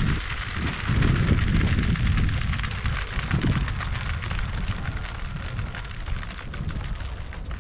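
Wind buffeting the action-camera microphone in gusts, with a low rumble that eases off about halfway through. Underneath is a steady hiss full of fast, dense clicking.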